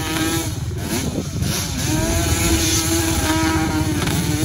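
ATV engine running while riding, its pitch falling and rising as the throttle is eased and opened.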